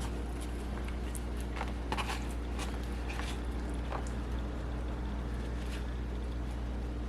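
Faint chewing and small clicks from eating, scattered about every half second, over a steady low electrical hum.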